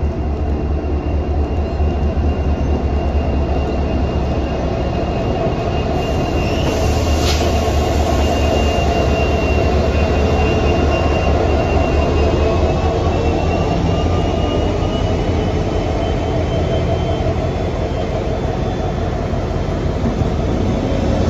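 Queensland Rail diesel locomotive 2903 passing slowly along the platform with its passenger train: a deep, steady engine rumble with a thin, steady high-pitched squeal above it. There is a single sharp click about seven seconds in.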